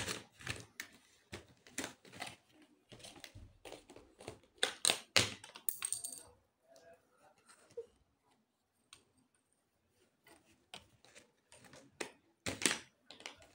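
Colour pencils and markers clattering against the plastic trays of an art case as a small child rummages through it: irregular sharp clicks and rattles, busiest in the first half, then sparser, with another brief flurry near the end.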